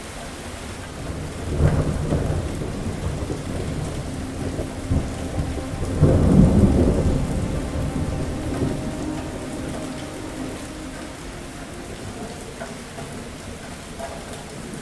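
Thunder rumbling over steady rain. A first peal comes about a second and a half in, then a louder clap about six seconds in whose rumble dies away over several seconds.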